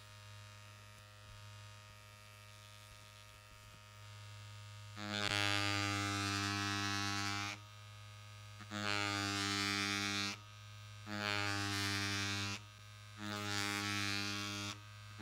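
Cartridge tattoo machine with a thin liner needle, worked on cased leather, buzzing in four bursts of one to two seconds each after a few seconds of low hum.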